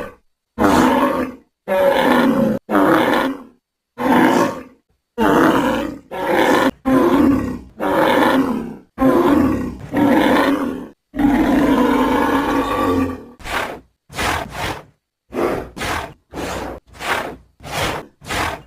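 Bulls bellowing, a run of about fifteen separate loud calls with silent gaps between them; from about two-thirds of the way through, the calls come shorter and quicker.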